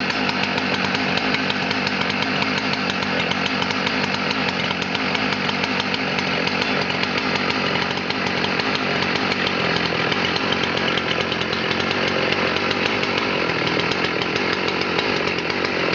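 Husqvarna 281 XP chainsaw's 80.7 cc two-stroke engine running steadily at high throttle under load, cutting wood.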